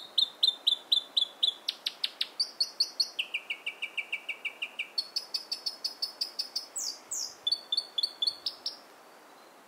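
South Island robin singing a long, loud song of rapid repeated notes, about five a second, delivered in runs that shift pitch, dropping lower for a couple of seconds and then climbing higher again, with a few quick downward-slurred notes before the song stops near the end.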